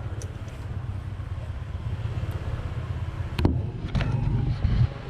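A low, steady engine rumble with a few sharp knocks in the second half.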